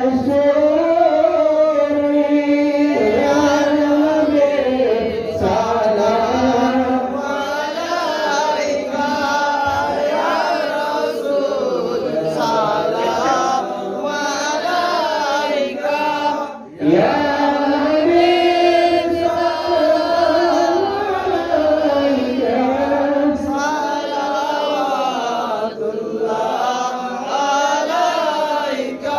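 Men singing an Islamic devotional chant into microphones, in long, ornamented held notes, with a short break for breath about 17 seconds in.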